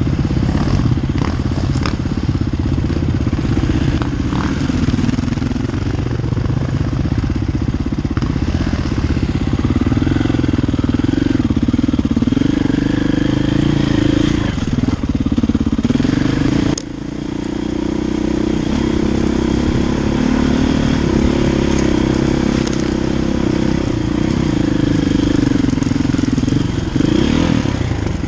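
KTM enduro motorcycle engine running under way on a trail, its revs rising and falling with the throttle. About halfway through the sound drops suddenly and then builds back up.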